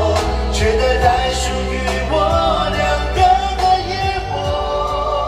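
Live pop ballad performance: a male singer's voice carries a gliding melody over a band with a steady bass line.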